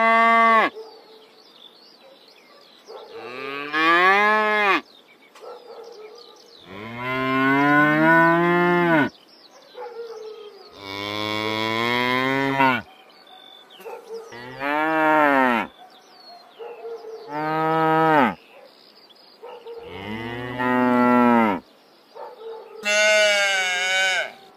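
Cows mooing: a series of about eight long calls, each one to two seconds, rising and then falling in pitch, with short pauses between them.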